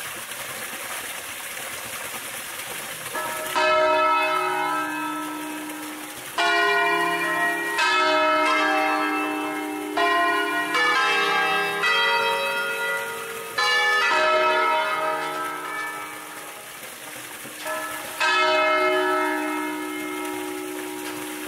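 Church bells of a five-bell peal in E-flat, swung full-circle on wheels in the Ambrosian manner and rung as a traditional 'scale' sequence. After a few seconds the bells sound one stroke at a time at different pitches, about eight or nine strokes with uneven pauses, each left ringing.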